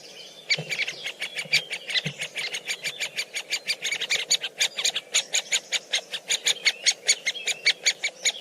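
Woodpecker pecking at food in quick, even taps, about seven a second, with bird chirps in between.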